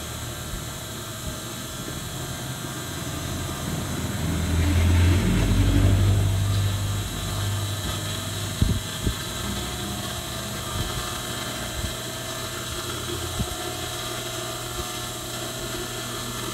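Industrial sewing machine's motor humming steadily while the machine is idle, with a louder low rumble swelling and fading about four to seven seconds in, and a few light clicks of fabric being handled.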